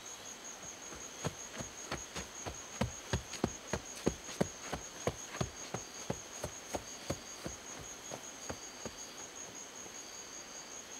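A horse's hoofbeats, about three a second, growing louder and then fading away, over a steady high-pitched insect drone.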